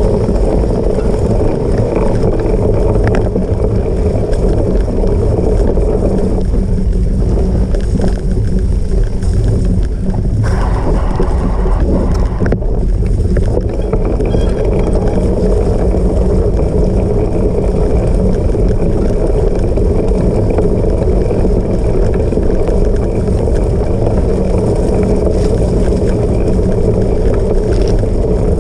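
Steady loud rumble of a cyclocross bike being ridden hard over the course, with wind buffeting the camera's microphone.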